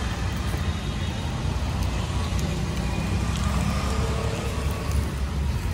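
A steady low rumble of street-stall background noise, with a few faint clicks of a metal spatula working toppings on an iron dosa griddle.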